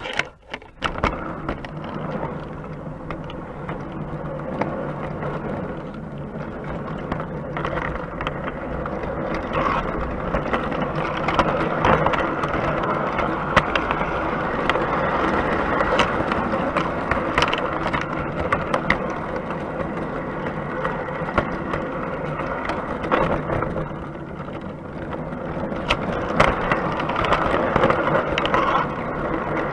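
O gauge three-rail model train running on its track, heard from inside a carriage: a steady rattling, whirring run of wheels on rails with scattered sharp clicks. It starts abruptly and grows louder over the first several seconds.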